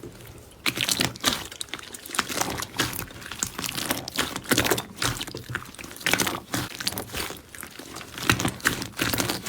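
Crunchy slime being squeezed and pressed by hand, giving dense, irregular crackling and crunching in quick clusters that starts after a short lull.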